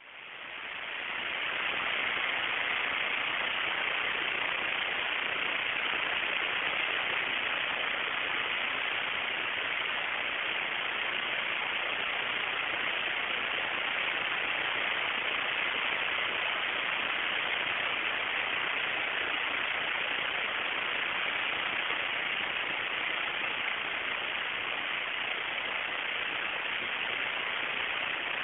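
A steady, even hiss with no distinct events, fading in over the first couple of seconds.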